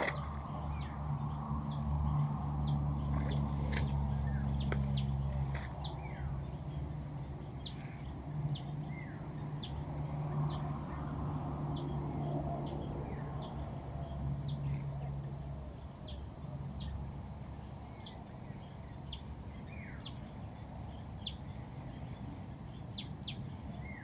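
Small birds chirping again and again in short high-pitched calls, over a low steady drone that fades about two-thirds of the way through.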